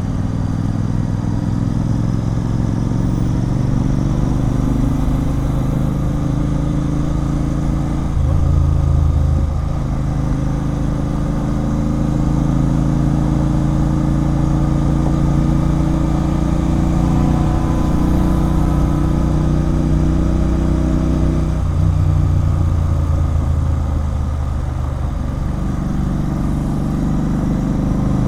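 Royal Enfield Continental GT 650's 648 cc parallel-twin engine running through a loud aftermarket Red Rooster Performance exhaust while riding. The engine note is steady and deep, and it drops twice, about eight seconds in and again a little past twenty seconds, as the throttle eases.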